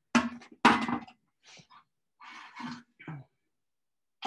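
Glassware and liquid being handled: two loud knocks near the start, then several softer knocks and clinks.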